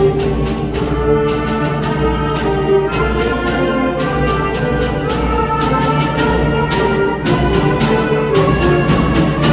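Concert band playing: brass and woodwinds hold chords over frequent percussion strikes.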